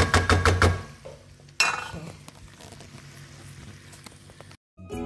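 Pasta being stirred and tossed in a frying pan with a wooden spatula, with sizzling. It starts with a quick run of scrapes and knocks in the first second, and there is another scrape about a second and a half in. Music comes in at the very end.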